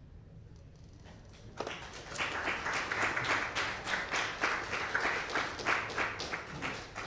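Audience applauding. The clapping swells about a second and a half in and dies away near the end.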